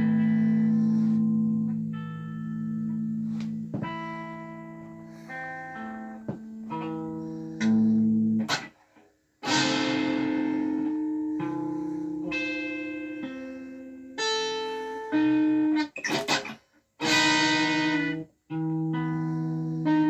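Electric guitar played through an amplifier: picked notes and chords ring out and slowly fade, with fresh chords struck after a few abrupt stops where the strings are damped, once about halfway through and twice near the end.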